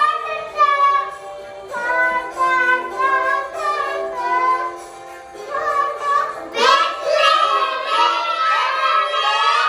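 Young children singing a Christmas song over instrumental backing music. The singing grows fuller and louder about two-thirds of the way in.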